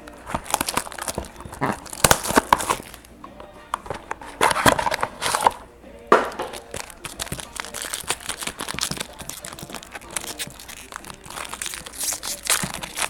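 Plastic wrapping on a sealed mini box of trading cards crinkling and tearing as it is pulled open by hand, in irregular rustling bursts.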